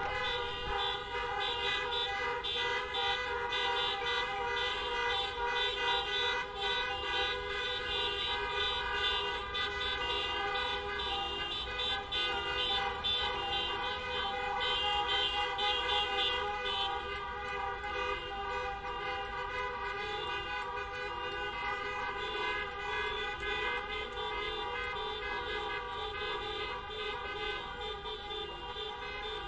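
Many car horns honking at once, long held blasts and shorter toots overlapping in a continuous din, as in a horn-honking protest, over a low traffic rumble. It eases off a little after about the halfway point.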